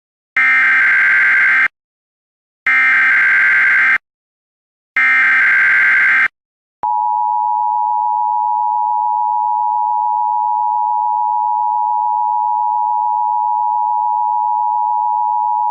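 Emergency Alert System SAME header: three identical bursts of digital data tone, each about a second long with short gaps between, followed about seven seconds in by the steady two-tone EAS attention signal.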